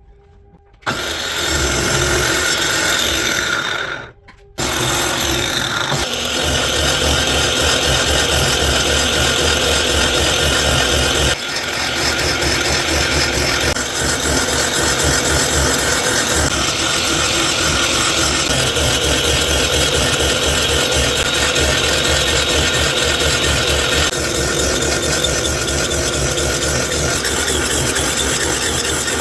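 A power tool working wood. It starts about a second in, stops briefly near four seconds, then runs on with a fast low pulsing and small changes in tone as the work goes on.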